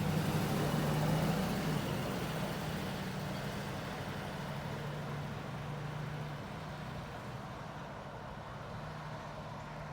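A motor vehicle's engine running with a steady low hum over outdoor background noise, slowly fading away over several seconds.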